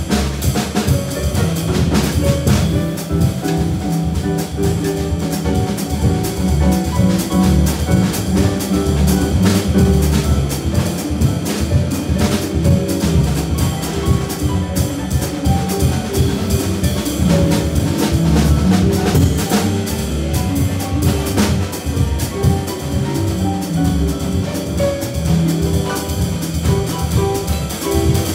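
A jazz trio of concert harp, plucked double bass and drum kit playing live, with drum strokes running throughout.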